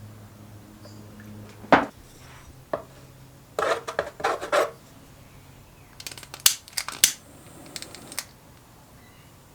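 Hand work on a steel jerry can and tools: one loud sharp knock, two short bursts of scraping, then a quick run of sharp clicks and knocks.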